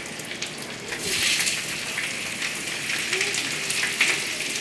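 Slices of boiled beef tongue sizzling and crackling in melted butter in a hot cast iron skillet as they are laid into the pan. The sizzle gets louder about a second in.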